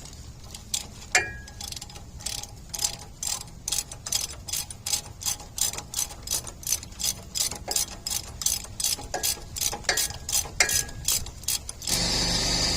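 Ratchet wrench clicking steadily, about two to three clicks a second, as it turns out a 7 mm Allen-head brake caliper bolt. A couple of ringing metal clinks come about a second in and again near the end.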